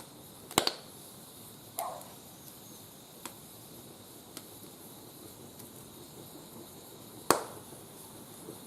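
Wood fire burning in a barbecue grill, popping now and then: a handful of sharp cracks over a faint steady hiss, the loudest about half a second in and another late on.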